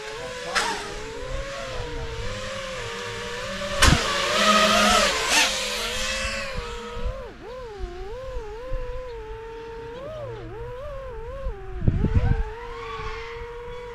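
5-inch FPV quadcopter's motors and propellers whining, the pitch rising and falling as the throttle changes. About four seconds in there is a sharp knock, followed by a couple of seconds of loud rushing noise.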